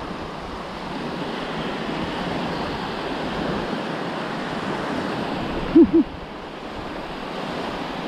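Small surf waves washing up and back over a sandy beach in a steady hiss. About six seconds in, two short pitched sounds come a fraction of a second apart, louder than the surf.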